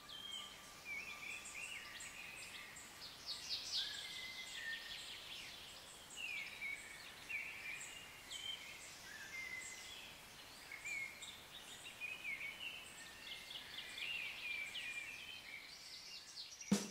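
Woodland birdsong: several small birds chirping and trilling in short, overlapping high phrases over faint outdoor hiss.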